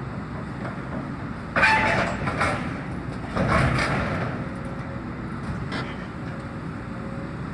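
Excavator's engine running steadily while it tears down a temporary building, with two loud clattering crashes of debris, about a second and a half in and again about three seconds in.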